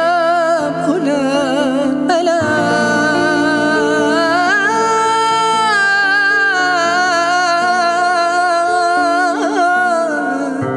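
A man singing an Arabic ballad into a microphone, drawing out long notes with a wavering vibrato and sliding ornaments, over sustained instrumental chords.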